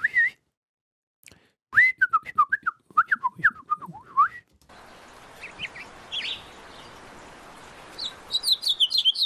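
A man whistling a warbling imitation of a house finch song. Then a recording of a real house finch follows: a few high chirps over a steady hiss, and from about eight seconds in a fast, high-pitched warbling song.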